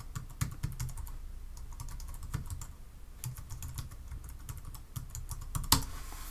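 Typing on a computer keyboard: an irregular run of quick keystrokes, with one louder click near the end.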